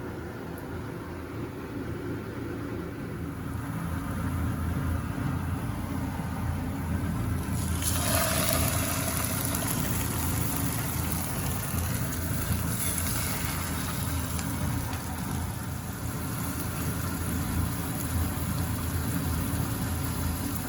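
Mahi mahi fillets sizzling in olive oil in a frying pan. The sizzle turns suddenly louder and brighter about eight seconds in and then holds steady, over a steady low hum.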